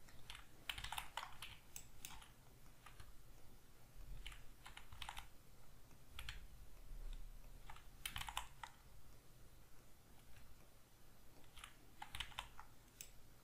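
Faint, irregular clicking of a computer mouse and keyboard as vertices are selected one after another, over a faint low hum.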